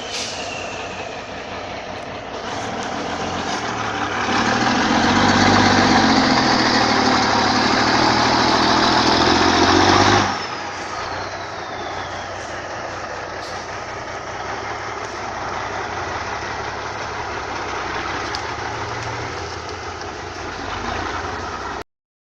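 Heavy diesel logging truck engine running. It grows louder about four seconds in, then drops off suddenly about ten seconds in, with a high whine falling in pitch as it eases. The sound cuts off shortly before the end.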